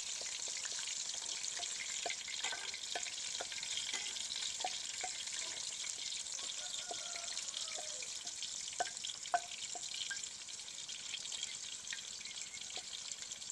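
Chicken pakoras frying in oil in a karahi: a steady sizzle, with scattered light clicks.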